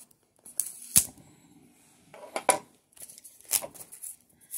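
Plastic shrink wrap crinkling in several short bursts as a card is worked out of it, with a sharp tap about a second in.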